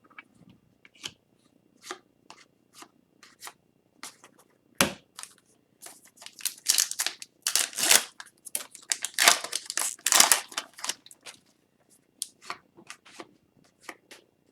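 Hockey trading cards being handled and flipped one after another: scattered light clicks of card stock, then a denser stretch of quick sliding and rustling of cards in the middle.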